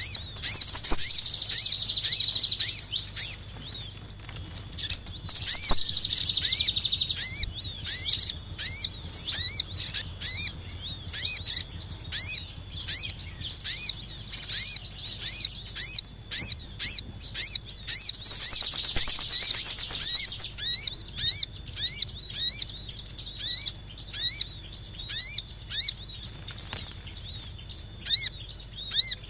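Bird-lure recording of small songbirds: rapid, repeated high-pitched chirps, with bursts of dense twittering near the start, around a quarter of the way in and about two thirds through.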